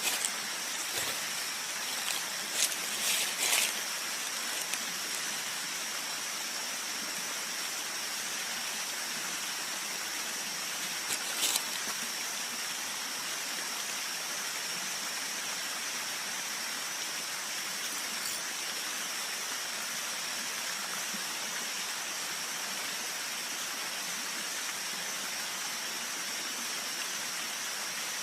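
A stream runs steadily with an even rushing sound, under a constant high-pitched whine. A few brief clicks and knocks come in the first few seconds and again about eleven seconds in.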